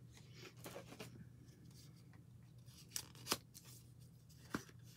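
Faint handling of paper and plastic packaging: soft rustling with a few brief sharp crinkles, two close together around the middle and one near the end, as small items are taken out of a paper gift bag.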